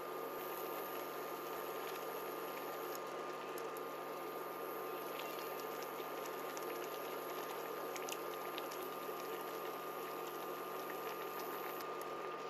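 Broth simmering in a pot with chunks of omelet and minced pork: a steady bubbling with scattered small ticks and scrapes of a spatula against the pot, over a steady faint high hum.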